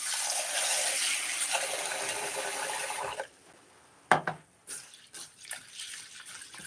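Kitchen tap running water into a large pot of red lentils for about three seconds, then shut off suddenly. A knock follows about a second later, then soft, irregular splashing as the lentils are washed in the water.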